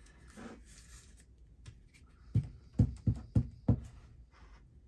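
Five quick light thumps on a tabletop, about three a second, from paper craft pieces being handled and pressed down. They start about halfway through, after a quiet stretch.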